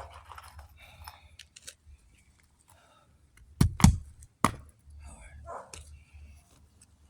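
Three sharp knocks about four seconds into shingle roof work, two close together and a third about half a second later, with faint scraping and handling noise around them.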